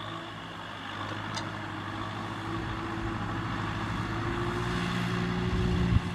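Kubota M6040SU tractor's diesel engine running steadily as it drives a trailer across a field, growing gradually louder as it comes nearer. A short thump sounds just before the end.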